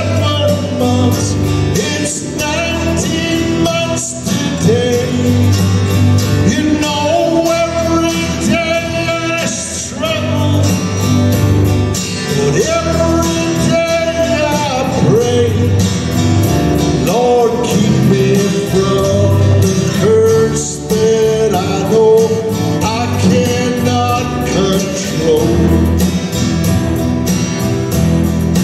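Live gospel song: a man sings lead to his own acoustic guitar, with keyboard accompaniment and a woman's voice singing along.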